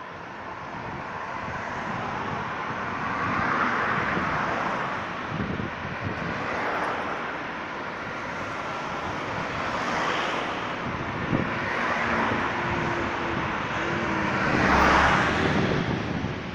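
Cars driving past one after another on a town road. Each passes as a swell of tyre and engine noise that rises and fades, about five in all, and the loudest passes near the end.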